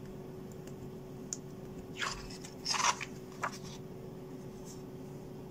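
A sheet of drawing paper being handled and shifted on the table, giving a few short rustles about two to three and a half seconds in, over a faint steady hum.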